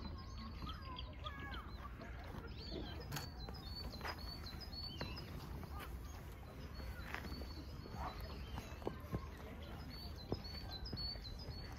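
Small birds chirping and calling over and over in short rising and falling notes, over a steady low rumble.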